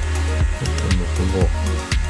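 Background electronic music with a steady beat of about two strikes a second over heavy bass.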